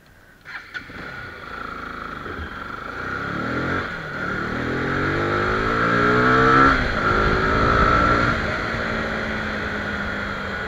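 Bajaj Pulsar RS200 motorcycle's single-cylinder engine pulling away: after a sudden onset about half a second in, it revs up with rising pitch, drops about two-thirds of the way through at a gear change, rises again, then settles to steady cruising.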